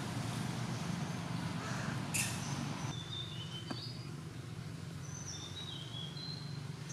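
Small birds chirping, a run of short high whistled notes starting about three seconds in, over a steady low hum. A brief sharp rustle or snap comes about two seconds in.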